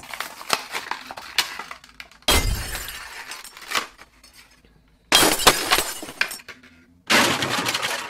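Stiff clear plastic blister packaging crinkling and crackling as it is pried and torn open. Scattered small crackles come first, then three loud bursts of crackling about two, five and seven seconds in.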